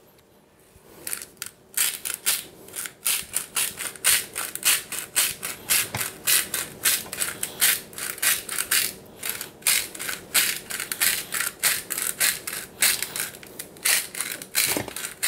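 Hand-twisted sea-salt grinder on its lowest setting, cracking salt crystals in a run of quick dry grinding rasps, about three a second, starting about a second in.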